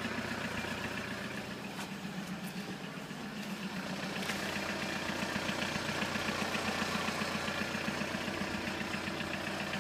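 Volkswagen Caddy van engine idling steadily, with an even pulsing beat.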